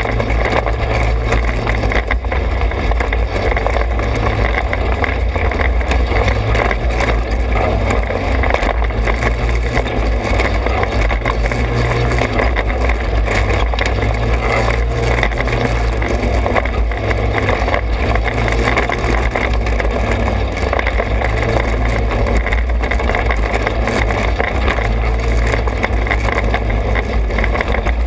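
Trailmaster 200 XRX's small engine running steadily under way on a bumpy dirt trail, with a heavy low rumble and rattling from the rough ground.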